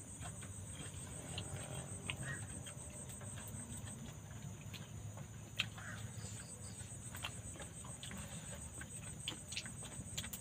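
Night insects chirring in a high, rapid pulsing trill. Now and then there are light clicks and taps from people eating by hand off plates.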